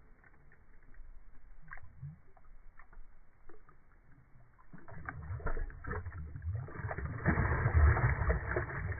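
Slowed-down, muffled water sounds from a phone's slow-motion clip of a bass being released back into the lake: faint scattered clicks at first, then a low sloshing that swells about five seconds in and is loudest from about seven seconds.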